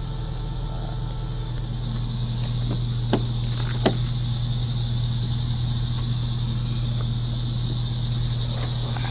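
Pickup truck engine idling steadily on HHO (hydrogen-oxygen) gas with its gasoline supply shut off, a low steady hum. Over it, a high steady hiss grows louder about two seconds in, and two short clicks come about 3 and 4 seconds in.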